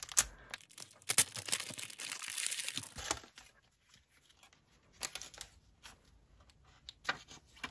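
Clear plastic wrapping being torn and peeled off a memo pad set, crinkling for about two seconds. A few light paper taps and rustles follow as the unwrapped pads are handled.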